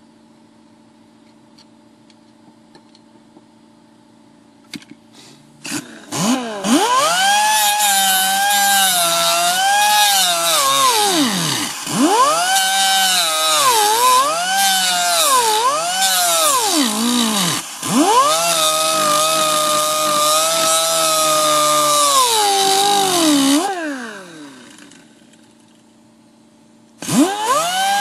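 Small grinder with a cutoff wheel cutting into a van's sheet-metal floor: a loud whine that dips in pitch and recovers again and again. It winds down with a falling pitch a few seconds before the end, then starts up again just before the end.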